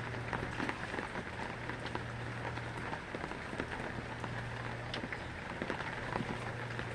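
Steady rain falling on a hard surface, many small drop hits, over a steady low hum.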